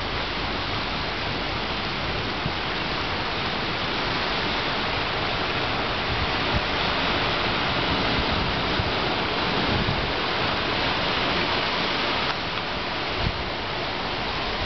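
Ocean surf breaking and washing over rocks along the shore: a steady rushing hiss, with some uneven low rumble underneath.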